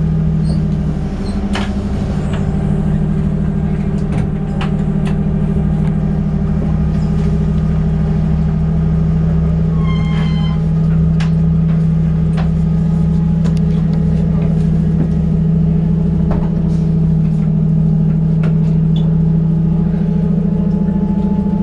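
Inside a 2004 Orion VII CNG transit bus under way: a steady engine drone, with sharp clicks at irregular intervals, the weird clicking sound of this bus. About halfway through there is a short high-pitched sound.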